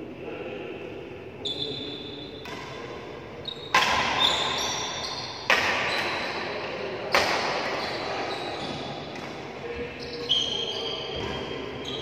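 Badminton rackets striking a shuttlecock in a rally, sharp echoing hits about every one and a half to two seconds, with short high squeaks of shoes on the court between them.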